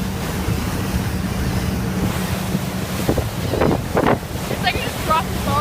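Steady rush of wind on the microphone over a ferry's engine drone and churning wake. A few short, wavering high calls from the birds following the boat come in the second half.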